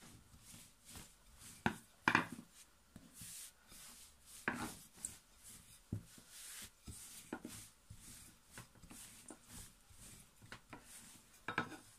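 Rolling pin rolling out bread dough on a board: irregular soft rubbing swishes with occasional sharp knocks.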